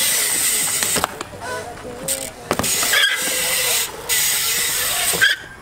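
BMX bike rolling and carving through a concrete skatepark bowl: a steady hiss of tyres on concrete, broken by a few sharp knocks from the bike.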